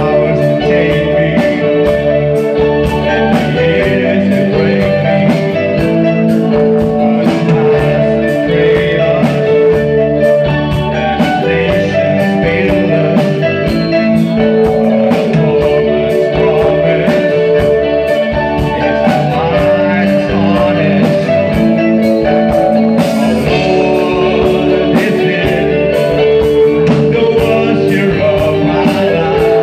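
Live rock band playing: electric bass, electric guitar, keyboards and a drum kit keeping a steady beat, with a man singing into a microphone over them.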